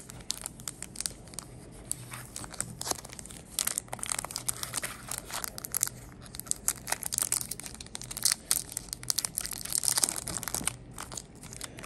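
Foil Pokémon trading card booster pack wrapper crinkling and tearing as it is handled and opened by hand: a run of sharp, irregular crackles that comes and goes in clusters.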